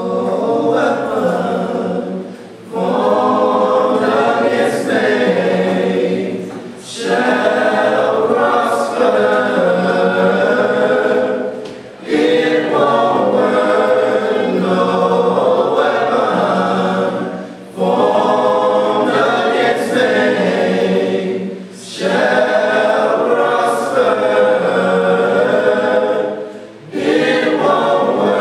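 Gospel choir singing together in long phrases, with brief breaks between phrases every four to six seconds.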